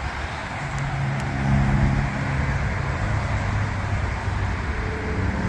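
Motor-vehicle road noise: a steady rush with a low engine hum that comes and goes.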